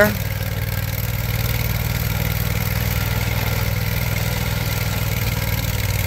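Vermeer SPX25 vibratory plow running steadily, its engine and vibrating plow blade working as the tracked machine pulls the blade through the ground.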